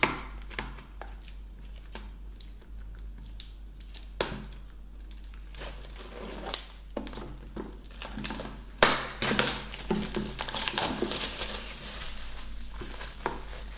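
Clear plastic shrink-wrap being picked at, torn and peeled off a cardboard DVD box set: scattered small clicks and scratches at first, then dense crinkling and crackling from about nine seconds in.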